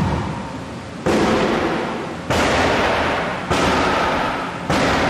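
A car's airbags and other pyrotechnic restraint charges firing one after another, deliberately set off so that the charges are neutralised before dismantling. There are five sharp bangs a little over a second apart, each followed by a hiss that fades.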